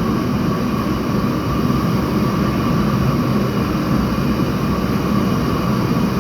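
A steady, unbroken mechanical drone, strongest in the low range.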